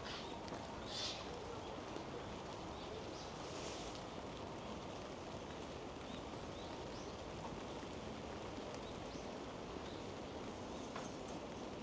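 Steady rain falling, an even hiss throughout, with a few faint high bird chirps.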